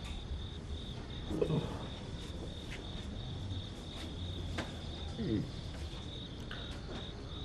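Crickets chirping steadily in a high, pulsing trill over a low background hum. Twice, about one and a half and five seconds in, a brief low falling sound cuts in.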